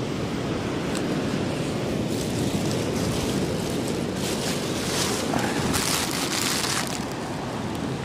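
Surf washing onto a beach, with a hiss that swells twice in the middle, over a steady rumble of wind on the microphone.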